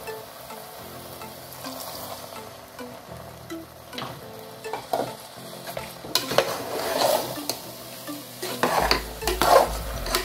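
A metal spoon stirring and mashing thick cooked jackfruit and coconut paste in an open pressure cooker, scraping and knocking against the pot's sides. The stirring starts in earnest about six seconds in, with repeated brisk strokes, loudest near the end.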